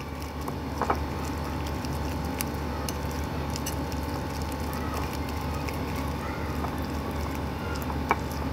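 A spoon beating thick gram-flour batter in a glass bowl: a steady wet stirring sound with a few light clicks of the spoon against the glass, over a constant low hum.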